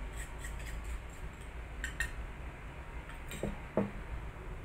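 Several light clinks and taps of small ceramic dishes and chopsticks against a ceramic mixing bowl as seasonings are tipped onto sliced beef, scattered irregularly over a steady low hum.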